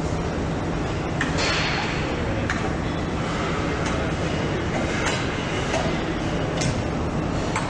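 Assembly-line machinery humming steadily, with occasional clicks and knocks as the electric motor housing and its parts are handled.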